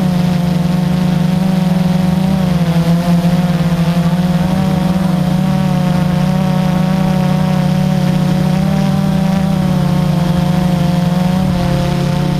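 Quadcopter drone's motors and propellers buzzing steadily, heard from its onboard camera, the pitch shifting slightly a few times as it flies.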